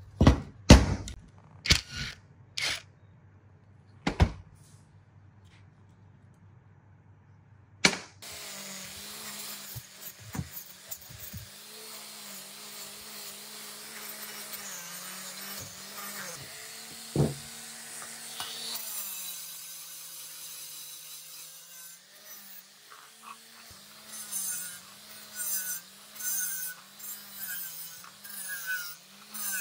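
A few sharp metal clicks and knocks, then from about eight seconds an angle grinder with an abrasive disc running steadily. Its pitch wavers as it is pressed onto the cast housing and end cover of a water pump's electric motor to strip rust and paint, with bursts of scraping hiss near the end.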